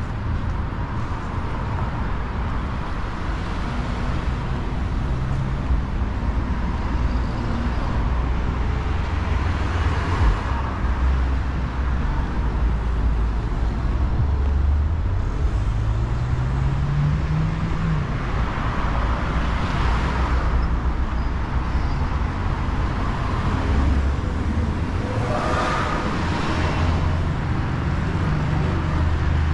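City street traffic: car engines running with several cars passing close by, one accelerating with a rising engine note about halfway through.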